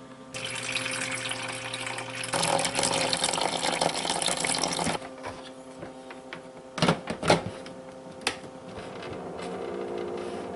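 A rushing noise for the first few seconds, then a few sharp plastic knocks and clicks about seven seconds in as the red plastic lid of a tabletop egg incubator is set down onto its base, over a steady hum.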